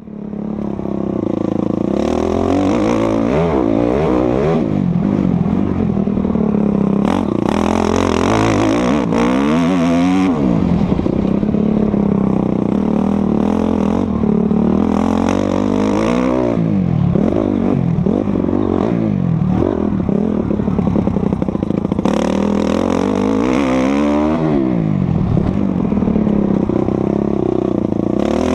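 Honda CRF four-stroke motocross bike being ridden hard on a dirt track. The engine revs up and backs off repeatedly as it accelerates, shifts and slows, its pitch rising and falling several times.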